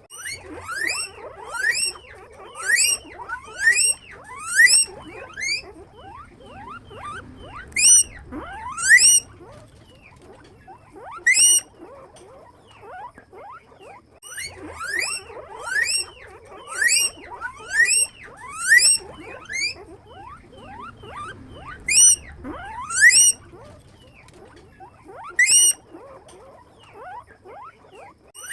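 Guinea pigs wheeking: loud, rising, whistle-like squeals repeated in quick bouts, with short pauses between bouts and softer squeaks in between.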